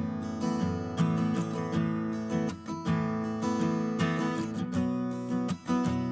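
Acoustic guitar music, strummed chords at an easy, steady pace.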